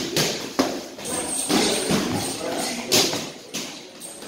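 Punches and kicks slapping against hand-held striking pads and focus mitts, with thuds from a heavy bag: a string of sharp, irregularly spaced impacts.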